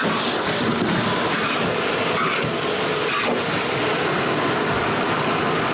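Diced half-fat pork sizzling steadily in hot oil in a large wok as it is fried to release its aroma.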